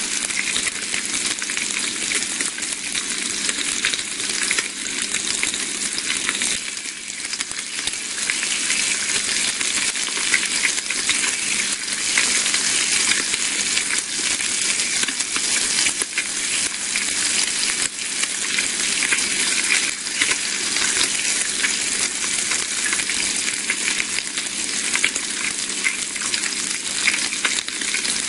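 Bacon sizzling and frying in a pan: a steady, dense crackle of many small spits and pops.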